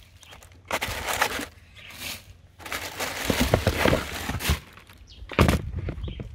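Wrapping paper rustling and crinkling in spells as football boots are lifted out of their shoebox, with a single sharp thump about five seconds in.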